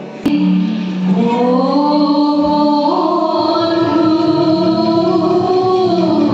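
Devotional stage music with singing for a Krishna dance drama. After a short sharp click about a quarter second in, a voice rises in steps into a long, held melodic line over the accompaniment.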